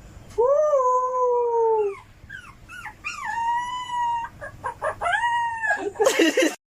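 Dog howling: a long howl that rises briefly then slowly falls, then a higher, shorter howl, with short yips between and another howl near the end. A brief burst of noise comes just before the end.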